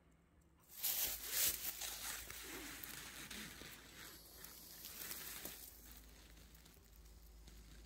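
Dry grass and a dried velvetleaf seed head rustling and crackling as a hand handles them. It starts suddenly about a second in, is loudest at first, then slowly fades to a softer rustle.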